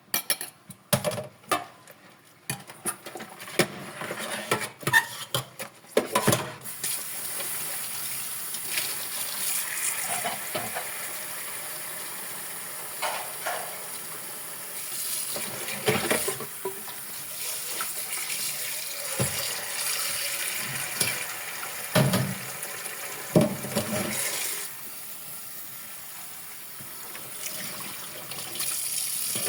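Dishes clinking and clattering at a kitchen sink, then tap water running steadily into the sink with a few knocks of dishes. The water eases off about 25 seconds in and picks up again near the end.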